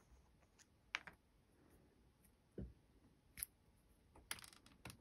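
Near silence with a few faint, scattered clicks and light taps from thin brass tubes in shrink tubing being handled between the fingers.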